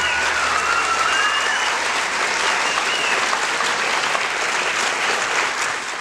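Audience applauding, a steady wash of clapping that begins to fade near the end.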